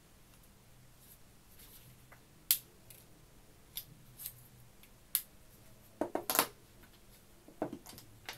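Scattered sharp clicks and light knocks from handling a Canon EOS M50 mirrorless camera, its lens and lens caps, with the loudest quick cluster about six seconds in.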